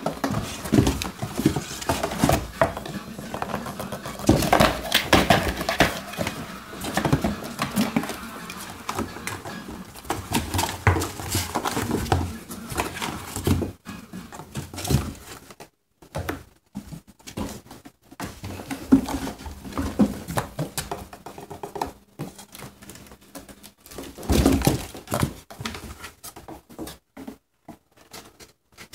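Cardboard boxes being scratched, knocked and rustled as a Bengal cat scrambles over and into them; busy in the first half, then sparser scratches and taps with quiet gaps.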